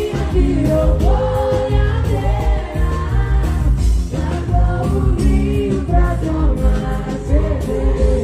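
Live sertanejo music through a concert sound system: a woman singing into a microphone, holding and bending notes, over a band with a steady, heavy bass beat.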